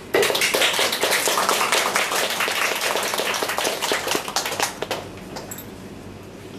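Audience applauding. It starts suddenly and dies away about five seconds in.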